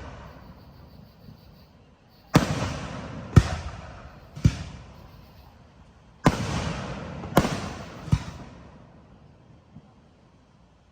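Aerial fireworks bursting: two volleys of three sharp bangs each, every bang trailing off in a long rolling echo.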